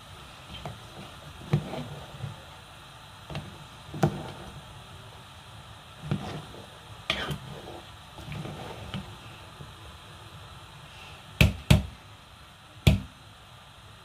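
A pot of thick ogbono soup simmering and being stirred with a spoon: irregular soft plops and bubbling with light clicks of the spoon against the pot. Three sharp knocks near the end, two close together and then one more.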